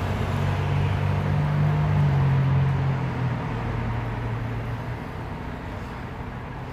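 A motor vehicle's engine running with a low, steady hum, loudest about two seconds in and then fading away, over background street traffic noise.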